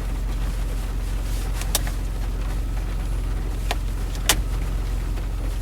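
Honda Civic idling steadily, heard from inside the cabin, with a few faint clicks as a spring is worked into place on the wiper stalk.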